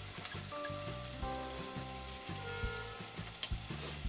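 Chopped onion sizzling in hot oil in an aluminium pot as it is stirred with a spoon, with one sharp click near the end. Background music with a steady beat plays along.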